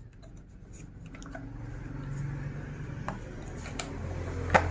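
Small clicks of a plastic toy gun being handled, with a sharp click near the end over a low hum.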